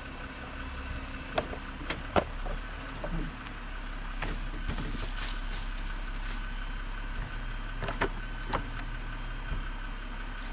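Jeep Wrangler Rubicon engine idling steadily, with a handful of short sharp knocks and clicks from recovery gear being handled around the stuck vehicle.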